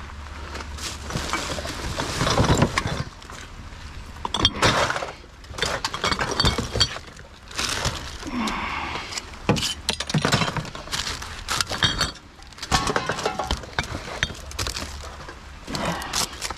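Glass bottles clinking and knocking against other bottles and cans as they are handled and set into a boot full of recyclables, with rustling of cardboard and plastic bags in between.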